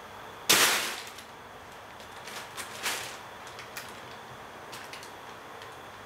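Thin clear plastic bag crackling and rustling as a cat pounces onto it: one loud sharp crackle about half a second in that dies away quickly, then a few shorter crinkles as the cat noses into the bag, and faint scattered crackles after.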